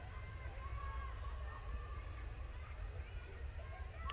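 Crickets chirping steadily in a high, shimmering band that swells and fades every half second or so, over a low rumble on the microphone.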